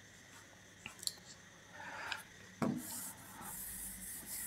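Faint rubbing against a smart board's touchscreen as it is written or drawn on, with a couple of small clicks about a second in and a dull knock about two and a half seconds in.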